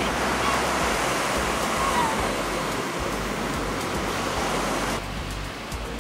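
Surf breaking and washing up the beach: a steady rush of waves, with brief faint voices in it. The rush drops a little about five seconds in.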